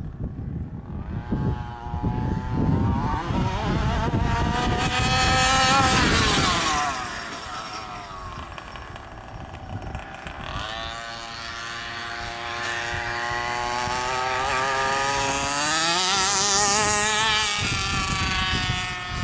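A 27cc two-stroke gas engine in a large-scale RC monster truck, run at full throttle: the revs climb to a high pitch for several seconds and fall away, then climb again in a second long run and drop near the end.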